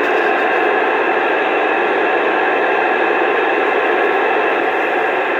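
Two-way radio receiver putting out loud, steady static hiss between transmissions, with nobody keyed up on the channel.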